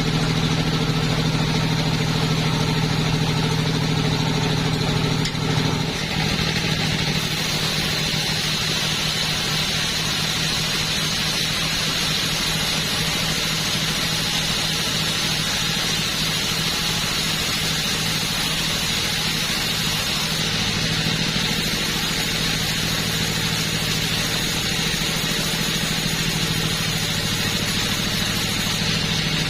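Two-stroke chainsaw engine running steadily at high revs. About six seconds in its note changes and a hissing edge comes in, then it holds steady.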